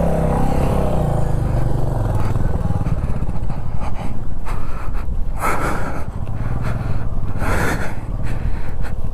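Single-cylinder Royal Enfield Himalayan 411 motorcycle engine running as the bike is ridden over a sandy off-road track, with two rushes of noise about five and a half and seven and a half seconds in.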